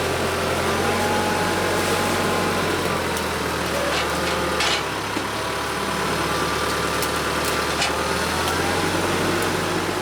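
TYM compact tractor's diesel engine running steadily under working load, its pitch sagging and recovering slightly, with a few sharp cracks about four and eight seconds in.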